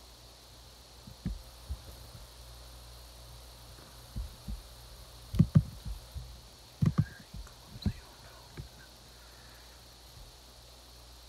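A string of short, dull thumps and bumps of handling noise on the recording device, the loudest a pair about halfway through, over a steady low electrical hum.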